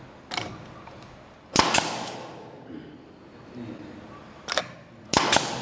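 Pneumatic nail gun firing several sharp shots a few seconds apart, the loudest about a second and a half in and again near the end, each with a short ringing tail.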